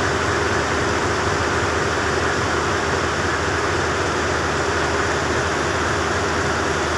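A boat's engine running steadily, heard from on board: a constant drone with a steady hum and an even hiss over it.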